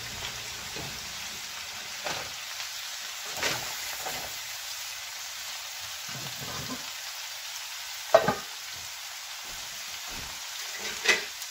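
Shredded cabbage and carrots sizzling in a large frying pan, a steady hiss, while a spatula stirs them, knocking against the pan a few times; the sharpest knock comes about eight seconds in.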